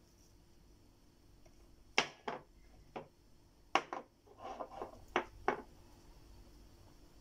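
Spice jars being handled and shaken over raw chicken wings in a plastic tub: about seven sharp clicks and knocks starting about two seconds in, with a brief scratchy patch in the middle.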